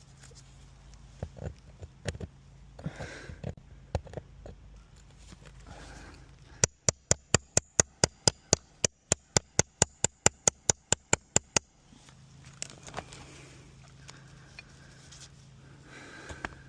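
Scattered knocks and scrapes of roofing work, then a quick even run of about two dozen sharp metallic taps, roughly five a second, lasting some five seconds, the kind of rapid hammer tapping used on roofing nails during a shingle repair.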